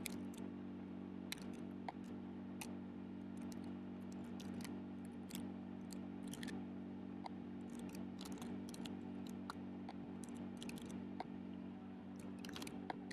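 Faint, irregular key clicks of typing on a computer keyboard, over a steady low hum.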